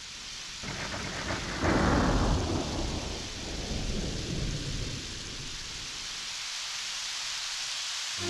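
Thunderstorm: steady rain with thunder. A low rumble comes about a second in, then a louder clap near two seconds that rolls away over the following seconds.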